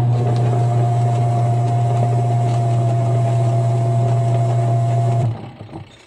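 Washing machine wash motor giving a loud, steady low hum with a fainter higher tone above it, cutting off about five seconds in. It is the humming ('umuugong') fault, which a bad capacitor, worn bushing or grounded motor can cause.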